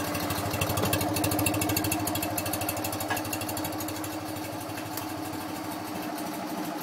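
1958 BMW R50's flat-twin engine idling steadily with even firing pulses, on its first run after a full restoration.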